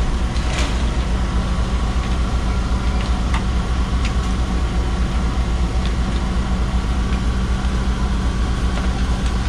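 Fishing boat's engine running steadily, a constant low hum with a faint higher whine, with a few light knocks here and there.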